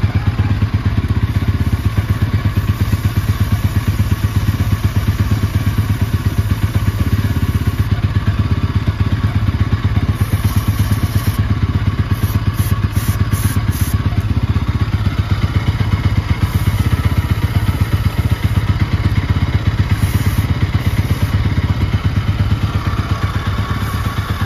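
Bajaj Pulsar NS200's single-cylinder engine running steadily in gear, turning the rear wheel and drive chain. Several short hisses of aerosol chain lube sprayed onto the moving chain come in the middle, some in quick succession.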